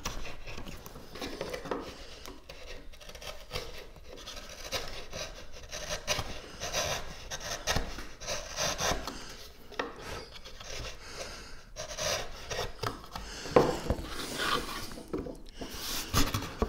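An old chisel paring and scraping the inside of a slot in a Valchromat wood-fibre panel, in a run of short rubbing strokes. A couple of sharp knocks come near the end.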